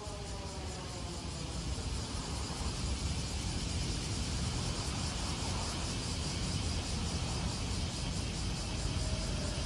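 Police car siren, sounded manually, winding down in a falling pitch and fading out over the first couple of seconds. Behind it are steady traffic rumble and a high, steady cicada buzz. A faint siren tone starts up again near the end.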